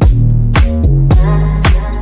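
Background music: an electronic dance track with a steady kick-drum beat about twice a second over deep bass notes.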